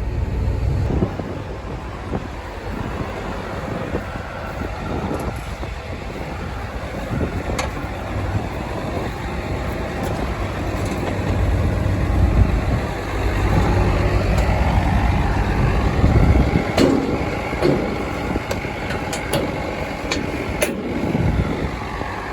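An 8310 tractor's diesel engine running steadily under way while it pulls a full grain wagon, with scattered knocks and rattles. The engine gets louder for a few seconds past the middle.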